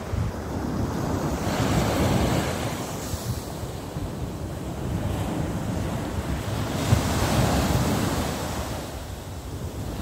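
Ocean surf washing up a beach, the rush of foam swelling about two seconds in and again around seven seconds in, with wind rumbling on the microphone.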